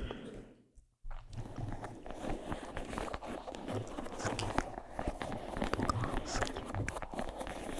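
Close-miked ASMR triggers: dense crackling and scratching with many small ticks and soft low bumps. It picks up again after a drop to near silence about a second in.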